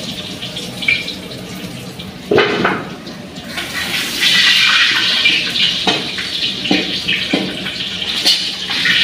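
Potato chunks frying in hot oil in a large aluminium kadai, a steady hissing sizzle that grows louder about four seconds in. Several short metallic knocks come from the perforated slotted spoon against the pan as fried pieces are lifted out.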